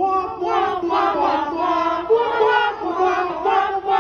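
Audience chanting together in unison, many voices sung on held pitches in a rising and falling chant.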